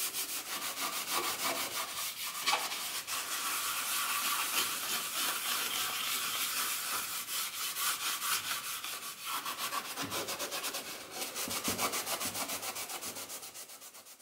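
Grey 1500-grit abrasive fleece pad rubbed rapidly back and forth over the painted steel body panel of a vintage Vespa scooter, scrubbing light surface rust off the original paint with little pressure. A steady scratchy rubbing that tapers off near the end.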